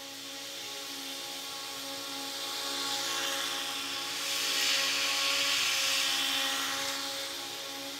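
Small gas engine of lawn equipment running steadily, with a cutting hiss that grows louder about halfway through and then eases back as the machine works closer and then moves away.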